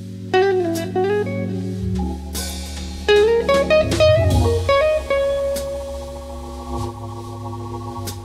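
Background blues music: electric guitar playing notes that bend in pitch, over a bass line and drum kit.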